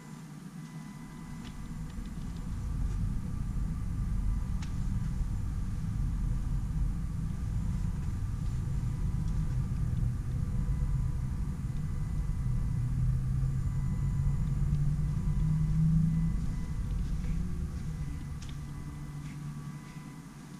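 Low rumble of road traffic on the multi-lane road below, swelling and then fading, with one vehicle's engine rising in pitch a little past the middle.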